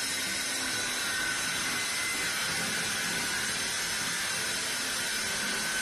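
Table saw running with a steady high whine and hiss as its blade rips a pine board fed along the fence against a feather board.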